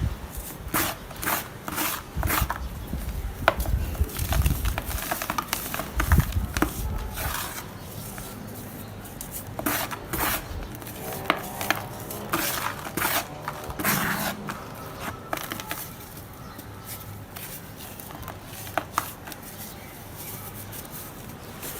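Dry red dirt chunks crumbling and breaking: a run of crisp cracks and crunches, with dull thuds in the first several seconds and lighter crackling after.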